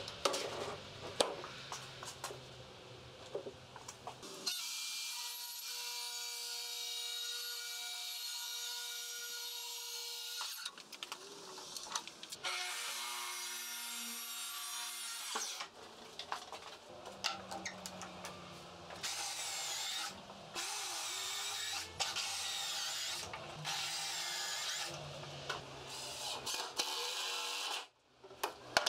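A track saw running along its guide rail and cutting plywood twice, each cut several seconds long with a steady motor whine. After that a Ryobi cordless drill drives screws into the 2x4 frame in a string of short bursts, with knocks of boards and tools being handled at the start and near the end.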